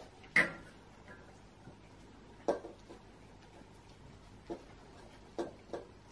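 Dog eating from a stainless steel bowl on the floor, its muzzle knocking and clinking the metal bowl. There is a sharp clank about half a second in, then four lighter knocks spaced a second or two apart.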